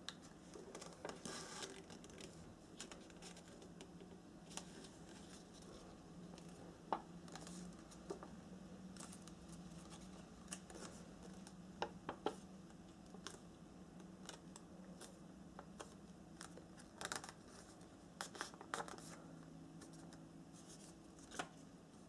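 Origami paper being folded and creased by hand: faint rustling and crinkling, with scattered sharp ticks as creases are pressed and flaps snap over, above a low steady hum.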